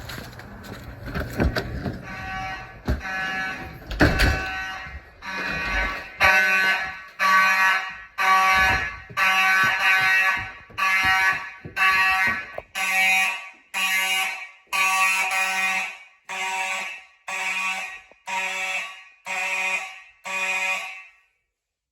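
Fire alarm horns sounding in a steady pulsing pattern, about one blast every second, with several horns blaring together. A few thumps and clicks come first, and the horns cut off abruptly near the end, as when the panel is silenced.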